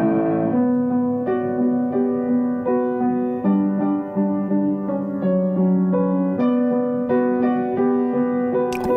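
Background piano music: a slow melody of held notes changing about every three quarters of a second over a lower held note.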